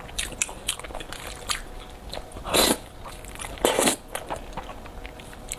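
Close-miked eating of spicy instant fire noodles: wet chewing and lip smacks throughout, with two loud noodle slurps, the first about halfway through and the second about a second later.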